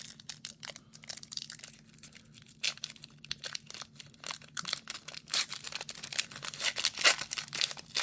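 Foil wrapper of a hockey card pack being torn open and peeled apart by hand: a run of irregular sharp crinkling crackles that gets busier and louder toward the end.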